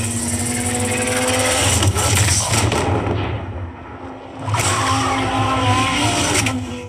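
Car-chase soundtrack of a sports car engine revving hard with tyre noise, played through a small Bluetooth speaker at maximum volume. The engine note eases off about four seconds in, then picks up again.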